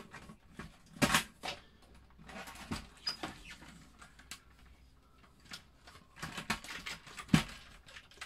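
Plastic case of a Commodore Amiga A600 being handled as its top shell, keyboard attached, is lifted off the base and set down: a few sharp clicks and knocks, the loudest about a second in and near the end, with soft rustling between.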